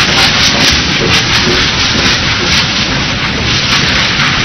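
GWR Castle class 4-6-0 steam locomotive 5029 Nunney Castle pulling out with its train: a loud, steady rush of steam and exhaust noise.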